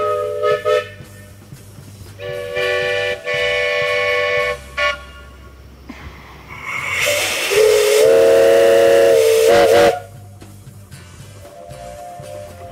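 Grand-scale steam locomotive's chime whistle blowing several times: a short blast at the start, a longer one about two seconds in, then the loudest blast over a loud rush of steam hiss from about seven to ten seconds in, ending in a couple of quick toots, and a fainter whistle near the end.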